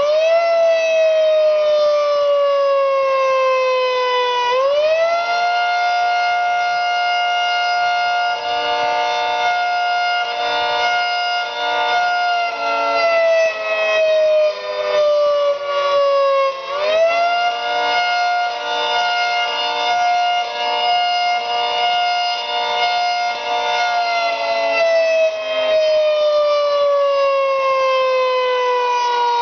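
Federal Signal 3T22 outdoor warning siren sounding a wail. It rises sharply in pitch three times, at the start, about five seconds in and about seventeen seconds in, holds high, then winds slowly down. During the held high stretches it pulses unevenly, the pulsing that its blocked intake causes when the solenoids are activated.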